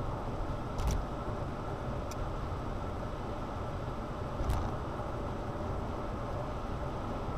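Steady road and tyre noise inside a car's cabin while cruising at motorway speed. Three short knocks cut through it: about a second in, around two seconds, and a louder one at about four and a half seconds.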